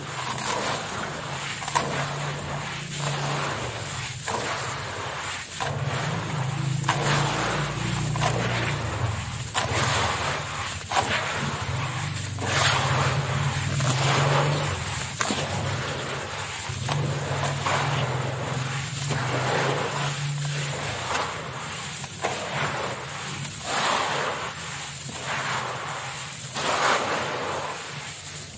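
Hands squeezing, scooping and crumbling wet charcoal sand in a tub of water: repeated gritty, wet crumbling strokes, about one a second. A steady low hum runs underneath and stops about three quarters of the way through.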